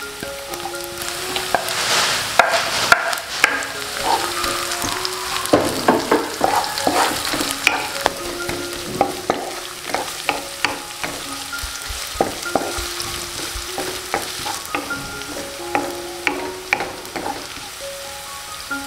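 Sliced onion going into hot oil in a nonstick wok with shallots and garlic, sizzling, with the sizzle swelling about two seconds in. From about five seconds in a wooden spatula stirs and scrapes the pan in quick strokes. Soft background music with a simple plucked melody plays underneath.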